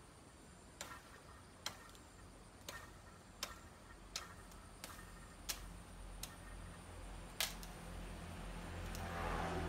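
A series of about ten sharp clicks, roughly one every three-quarters of a second. Near the end a low rumble builds up and grows louder.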